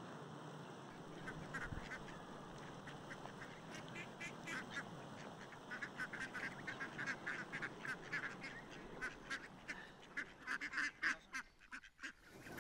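Waterfowl on the lake calling in a chatter of short, repeated honking calls that grows busier and more rapid toward the end, over a steady low rush.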